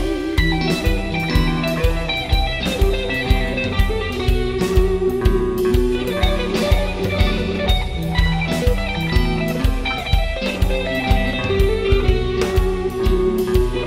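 Instrumental rock music: an electric guitar playing a melodic lead of held notes over a steady beat.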